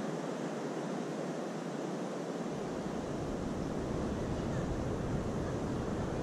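Ocean surf breaking on a beach, a steady wash of noise, with wind rumbling on the microphone from about two and a half seconds in.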